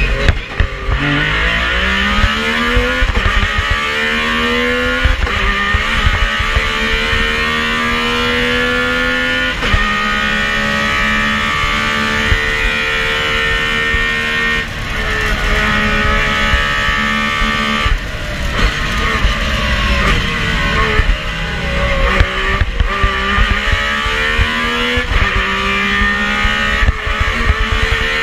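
Metro 6R4 rally car's 3.0-litre V6 engine heard from inside the cabin, driven hard through the gears: the engine note climbs steadily and drops at each upshift. It holds steadier in the middle, then runs through a quicker series of rising revs and shifts toward the end.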